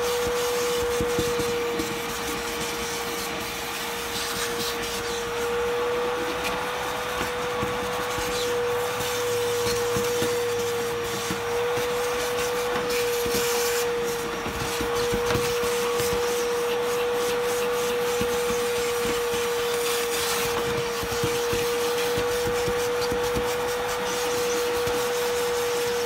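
Shop vacuum running with a steady high whine as its hose nozzle is worked over the felt wheel-well liner, sucking loosened dirt out of the fibres.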